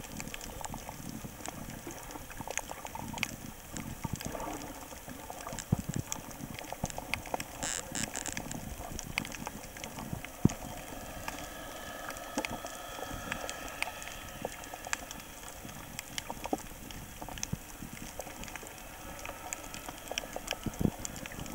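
Underwater sound on a coral reef: a dense, steady crackle of small clicks and pops, with a few sharper, louder clicks scattered through it.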